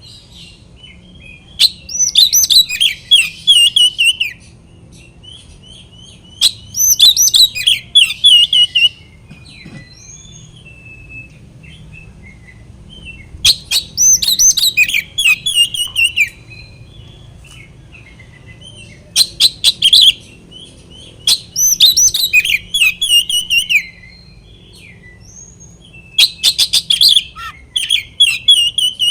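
Oriental magpie-robin (kacer) singing its loud, challenging song, the full-volume 'gacor' song used to provoke rival males. It comes in bursts of varied whistled and chattering phrases, each about two to three seconds long, with short pauses between them.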